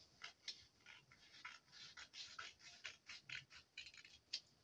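Scissors cutting through pattern paper: a run of faint, irregular short snips.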